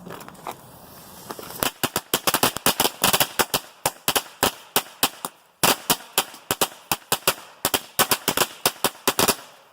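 A string of Keystone Thunder Bomb firecrackers (100 shots) going off. After a quieter first second and a half, sharp bangs come rapidly and irregularly, several a second, with a brief lull about halfway through.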